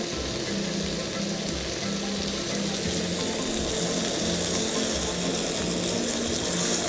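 Marinated meat skewers sizzling steadily in hot oil in a steel frying pan, browning on the outside, with soft background music underneath.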